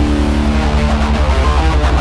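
Heavy metal band playing live through a PA: distorted electric guitars over a fast, even low drum pulse. A held chord rings out for about the first second, then gives way to the chugging rhythm.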